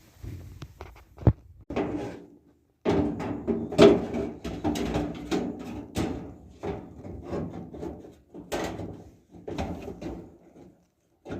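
Knocks, clunks and scraping of clothes-dryer parts being handled and fitted during reassembly. A longer rough scraping stretch comes about three seconds in, and sharp knocks come at the start.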